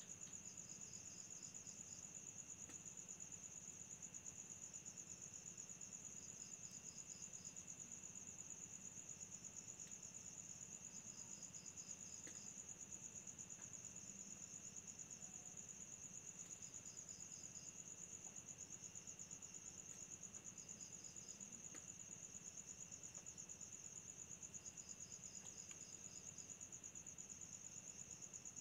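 Faint night-time insect chorus of crickets: one continuous high, rapid trill, with another insect chirping in short runs of about five pulses every one to three seconds, over a fainter steady lower drone.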